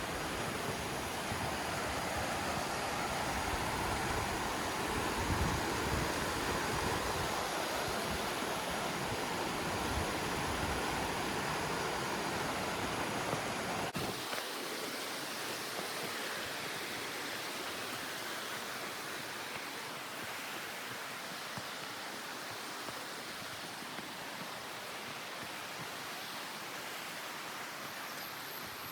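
Running water of a mountain stream rushing steadily, with low rumbles in the first half. About halfway through it switches abruptly to a softer, thinner rush.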